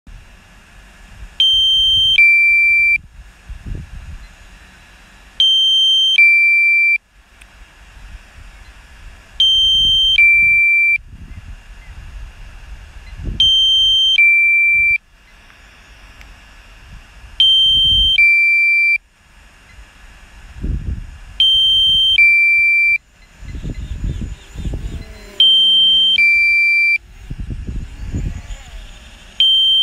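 An electronic alarm sounding a two-tone beep, a higher tone then a lower one, each about three-quarters of a second long, the pair repeating every four seconds. Irregular low rumbles of wind on the microphone run between the beeps.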